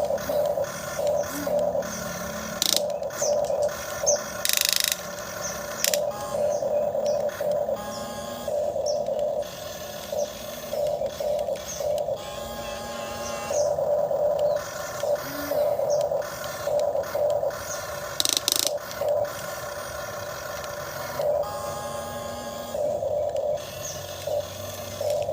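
Small electric motor of a remote-controlled excavator whining in short on-and-off bursts as its controls are worked. There are occasional brief scrapes.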